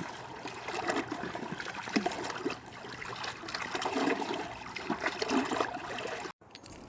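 Small stream trickling and gurgling over rocks, cutting off abruptly near the end.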